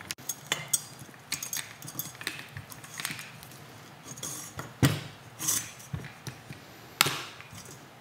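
A bundle of wires with small connectors being pulled out through a motorcycle handlebar: scattered light clicks and rustles of the wires against the bar, with two louder knocks about five and seven seconds in.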